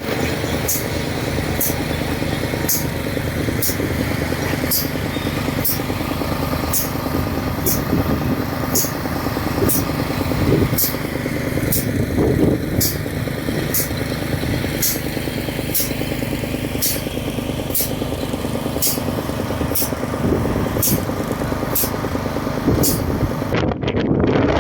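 Bulldozer's diesel engine running steadily, with a short high tick about once a second over it.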